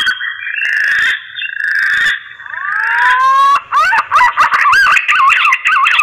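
Green pigeon (punai) mating song: rapid, looping whistled warbles, broken about half a second in by a hoarse, rasping stretch and a few rising whistled glides, then the fast warbling resumes at about three and a half seconds.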